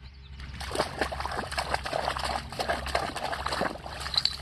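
A wet, muddy German shepherd puppy splattering water and mud about, a dense run of splashes that starts just under a second in and lasts about three seconds.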